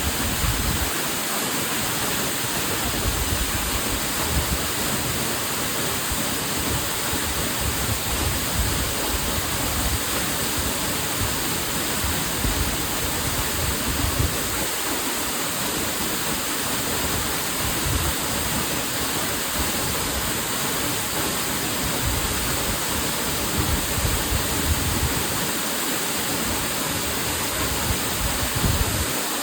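Hossawa Falls waterfall rushing in a steady, unbroken roar of falling water.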